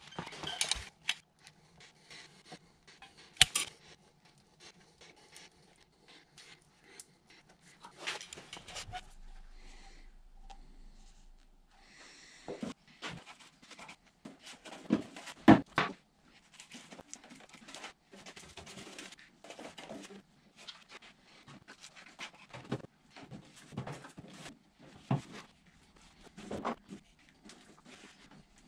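Irregular knocks, clicks and clatter of a paint tin and tools being handled, with a sharper knock a little past the middle.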